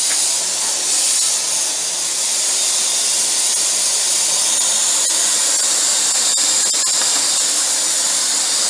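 Vacuum cleaner running steadily, a constant high-pitched whirring hiss with a few faint clicks.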